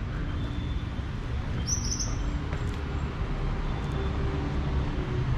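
Street ambience: a steady low rumble of vehicle traffic, with a short high bird chirp about two seconds in.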